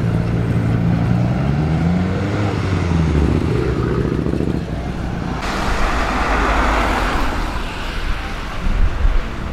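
A tuned car's engine running and rising slightly in pitch as it pulls away. About five and a half seconds in, a louder rushing engine and exhaust sound starts abruptly and lasts about two seconds, then settles to a low rumble.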